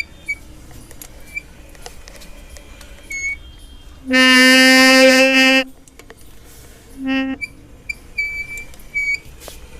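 Rear disc brake of a Royal Enfield Classic 350 Reborn giving a loud, honking, horn-like squeal for about a second and a half as the bike is rolled with the brake on, then a shorter one, with faint high chirps in between. This is the recurring rear brake noise that has persisted through four sets of disc pads.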